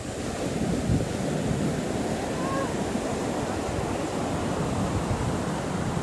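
Surf breaking and washing up a sand beach, a steady rushing wash that swells just at the start, with wind rumbling on the microphone.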